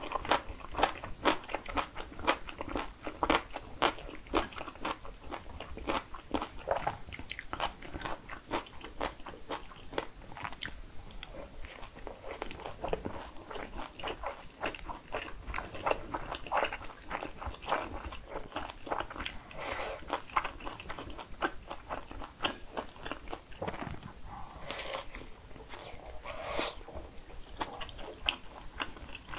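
Close-miked eating sounds: a person chewing food, with many crisp crunches one after another. Two louder mouth sounds come near the end.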